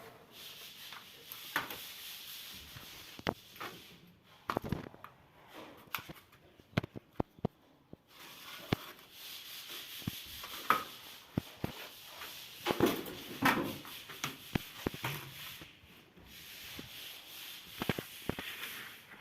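Clicks and knocks from a tape measure and tools being handled, with scratchy rubbing of marking out on a marble countertop; the clicks come thickest in the middle stretch.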